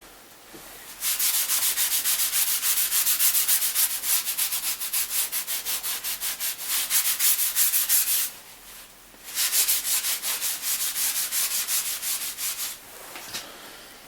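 Fast back-and-forth scrubbing on the Boxford lathe's oil-stained paintwork, about four strokes a second, in two bouts with a short pause between.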